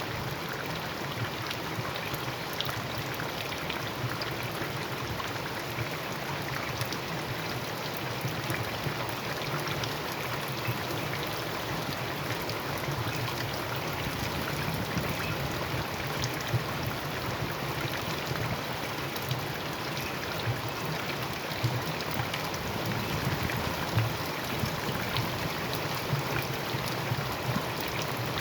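Rain falling steadily: a continuous hiss of water dotted with many small ticks of individual drops striking.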